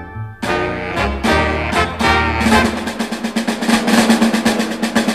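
Background music: a few loud chords, then from about two and a half seconds in a rapid drum roll over a held low note.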